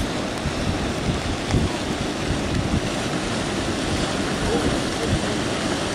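A mountain river in flood, rushing steadily, with wind buffeting the microphone.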